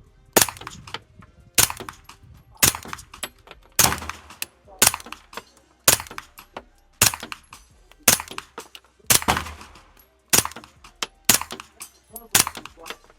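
Suppressed 9mm firearm firing 115-grain rounds, about a dozen shots roughly once a second, with steel targets clanging from hits.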